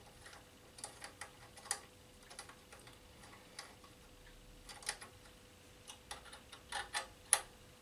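Scattered light metallic clicks and taps, uneven in spacing, as bolts are fitted and done up by hand on a steel tail-light bracket at a motorcycle's swing arm. A faint steady hum sits underneath.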